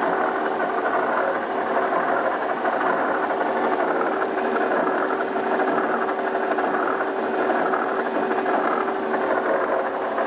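1963 Oliver Model 600 drill grinder running steadily under power, its 2 HP motor and grinding head giving a constant hum with an even mechanical whir.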